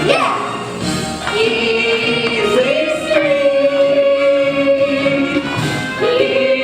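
A stage-musical song sung by a few young voices over musical accompaniment, holding long notes that step up in pitch a couple of times.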